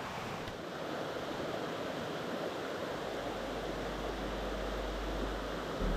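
Small mountain stream rushing steadily over rocks and a little cascade into a pool. A low rumble joins about halfway through.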